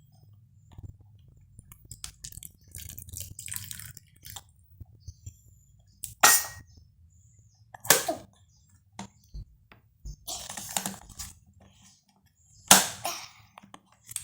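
Plastic toy washing machine being handled: scattered clicks, knocks and short rustling bursts a couple of seconds apart.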